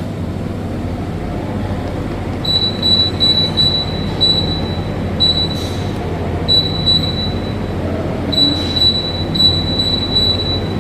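TCL TAC-05CSA half-ton air conditioner running: a steady low hum with the rush of air. From about two seconds in, a high-pitched whine cuts in and out repeatedly.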